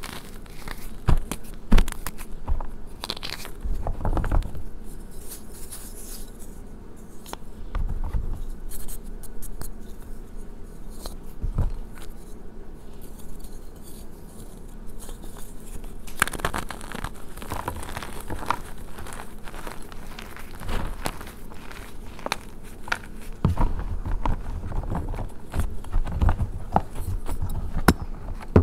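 Gym chalk being crushed and squeezed by hand in a tub of chalk powder: crumbling and crunching with many small sharp crackles, and reformed chalk discs being handled and set down. The crushing grows busier about halfway through.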